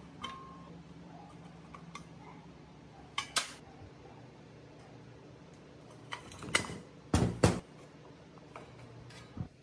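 Metal parts clinking and knocking as they are handled and set down: scattered sharp clanks, a quick pair about three seconds in and a louder cluster around seven seconds.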